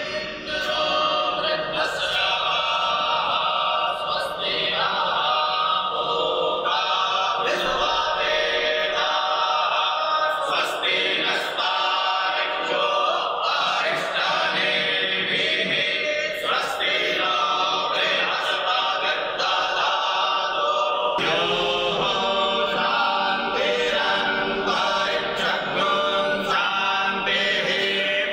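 A group of voices singing a devotional prayer together, a new phrase starting about two-thirds of the way through.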